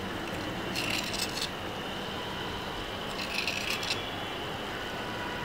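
Metal spoon scraping the inside of a stone mortar to scoop out ground spices, in two short rasping bouts, about a second in and again past three seconds.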